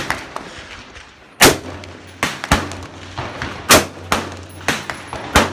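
Rifle shots from an AR-15-style semi-automatic rifle: four loud, sharp cracks about every one and a half to two seconds, with fainter shots from elsewhere on the firing line in between.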